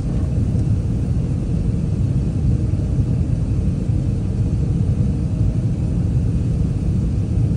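Airbus A380 cabin noise in flight, heard inside the upper deck: a steady, low engine and airflow roar that holds an even level.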